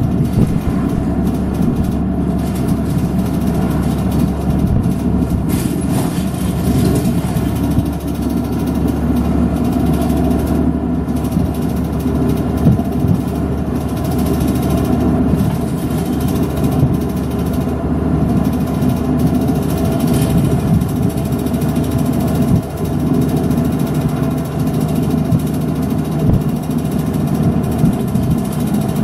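Route bus engine running with a steady low hum, heard from inside the bus cabin, its pitch shifting a little now and then as it drives.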